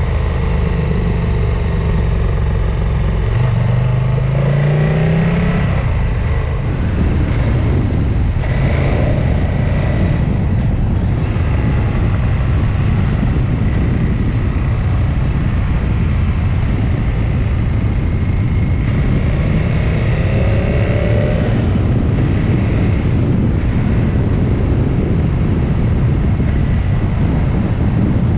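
Steady wind and road noise from a moving vehicle, with an engine's pitch rising briefly about four seconds in.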